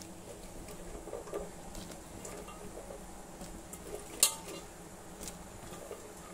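Light knocks and clinks around a pan of hot water with cauliflower florets in it, over a faint steady background, with one sharp clink about four seconds in.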